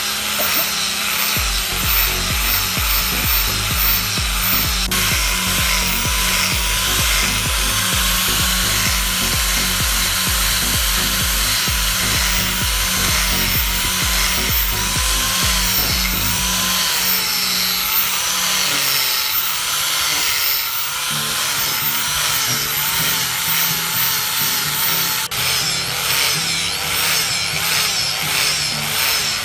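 Electric angle grinder with a sanding disc running against the steel of a rusty cross-peen hammer head, grinding off rust, with background music playing over it.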